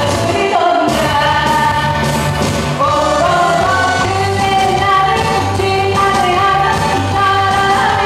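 A woman singing a Korean trot song into a handheld microphone, her voice holding and gliding between notes over a backing track with a steady beat.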